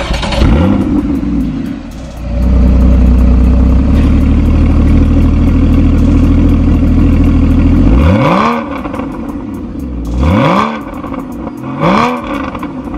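Porsche Cayman 981's flat-six engine heard through its sports exhaust and twin tailpipes: one rev just after the start, a loud steady run for several seconds, then three quick throttle blips, each rising and falling, about two seconds apart.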